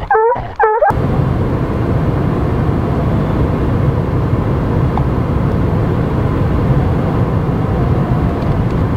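Steady engine and road noise inside a pickup truck's cab, after a brief call in the first second.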